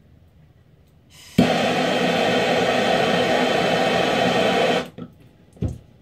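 Hand-held propane torch on a green propane cylinder: a brief hiss of gas, then it lights with a sharp click about a second and a half in and burns with a steady loud hiss for about three and a half seconds as it heats a small tin of candle wax to melt it, then cuts off. A short knock follows near the end.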